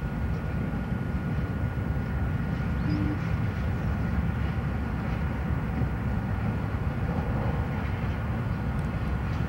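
Santa Fe diesel freight locomotives passing, a steady low rumble of engines and rolling stock.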